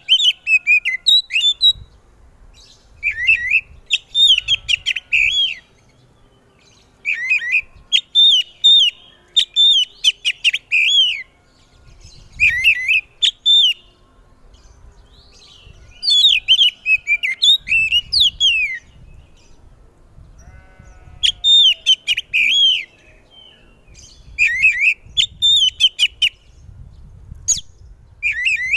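Oriental magpie-robin singing loudly in repeated bouts of rapid whistled and chattering phrases, each bout a second or two long with short pauses between.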